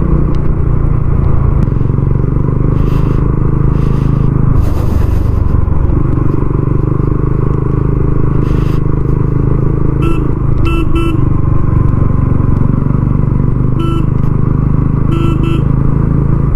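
TVS Ronin 225 motorcycle's single-cylinder engine running steadily on the move. A horn gives several short beeps in quick groups in the second half.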